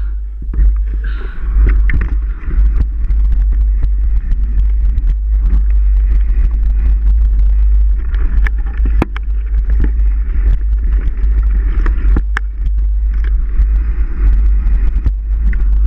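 Wind buffeting a camera microphone on a moving mountain bike, a loud steady low rumble, with scattered clicks and knocks of the bike rattling over rough ground.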